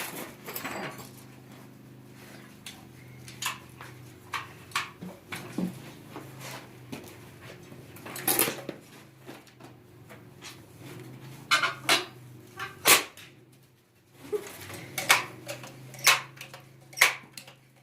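Metal tools clinking and knocking on a bicycle, a dozen or so separate sharp clanks with pauses between, as the axle pegs are taken off to get at a really loose chain.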